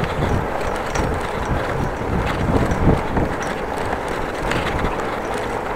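Wind rushing over the microphone while riding a bicycle, with tyre and road noise and a few light clicks and rattles from the bike.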